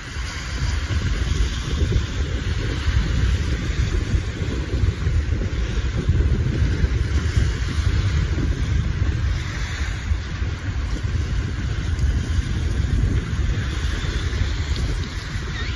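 Wind buffeting the microphone, a steady low rush that rises and falls, with the hiss of small waves washing on the beach behind it.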